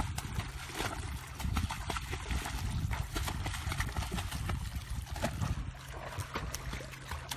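Many quick, irregular clicks and taps over a low rumble.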